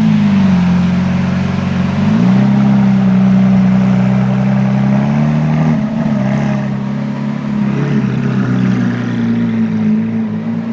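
Car engine running at low revs, a steady drone that dips and rises slightly in pitch a couple of times.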